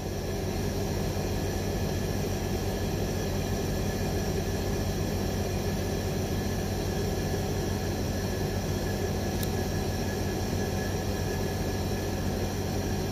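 A steady rushing noise with a low hum, unchanging throughout.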